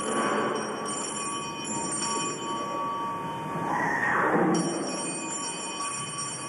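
Bells ringing at the elevation of the chalice during Mass, holding several steady ringing tones. A brief downward-sliding sound comes about four seconds in.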